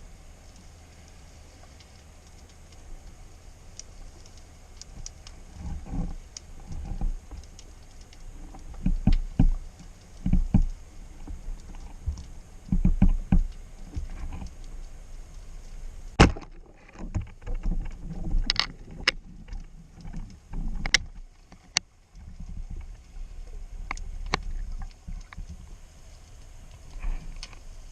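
Water moving around a small action camera in shallow sea water: a low sloshing rumble that rises in irregular surges, with several sharp clicks and knocks in the second half.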